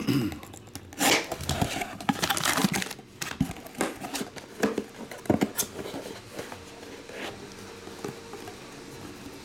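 White cardboard card box being handled and its flap lid opened and closed, with scraping, tapping and crinkling of packaging. The handling is busiest for the first six seconds and quieter after that.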